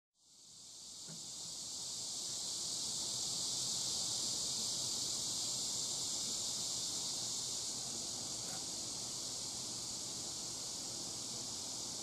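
Steady, high-pitched chorus of insects, fading in over the first couple of seconds and then holding even.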